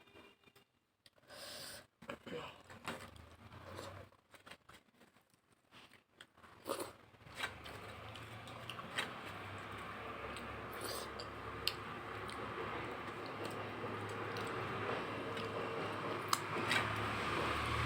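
Soft chewing and mouth clicks while eating rice and curry, then a steady hiss with a low hum that slowly grows louder from about halfway in, with a few sharp clicks over it.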